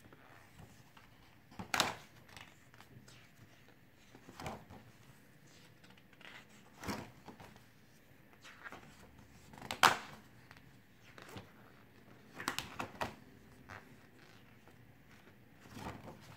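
Pages of a ring-bound photobook being turned by hand: short paper flaps and rustles every couple of seconds, the sharpest about ten seconds in and a quick run of them a little after twelve seconds.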